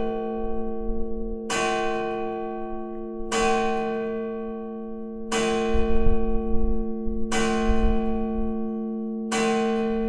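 Clock-striking hammer striking the bronze church bells tuned fis¹ and gis¹, made by the Fischer brothers of Trnava. There are five strokes about two seconds apart, each left ringing into the next, with a low rumbling under the middle strokes.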